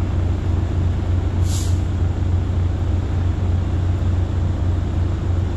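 Semi truck's diesel engine idling steadily, heard from inside the cab as a low drone, with a short hiss about a second and a half in.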